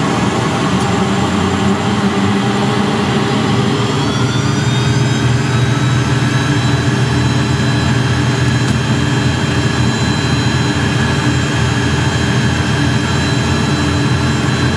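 Williams FJ44-2A turbofan engine of a Beechcraft Premier I spooling up during engine start, heard inside the cockpit: a whine rises in pitch for a few seconds, then holds steady as the engine settles at idle, over a steady low rumble.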